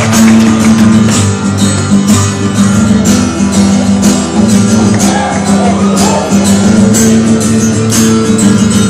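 Acoustic guitar strummed steadily in an even rhythm, the chordal intro of a song played solo live, before the vocal comes in.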